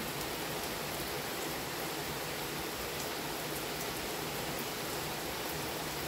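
Steady rain falling during a thunderstorm: an even, unbroken hiss of rainfall.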